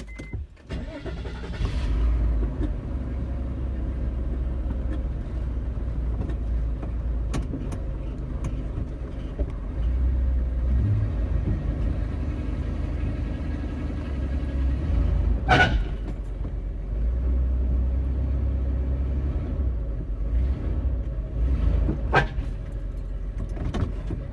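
Minivan engine starting and running as the van is driven up onto ramps. A sharp knock comes about two-thirds of the way through, and another near the end.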